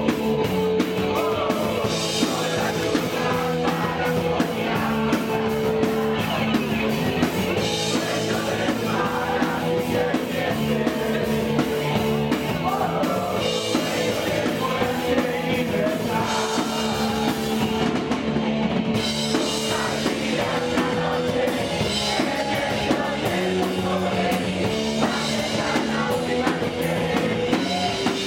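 Live punk rock band playing: fast drums with dense cymbals, distorted electric guitar and bass, and a man's sung vocals over the top, loud and unbroken.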